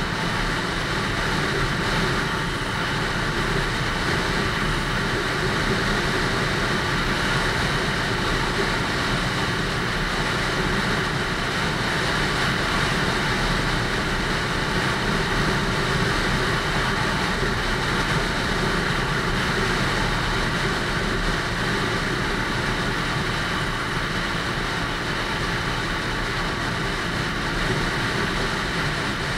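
Lexmoto ZSX-F motorcycle running steadily under way, mixed with a steady rush of wind noise on the microphone.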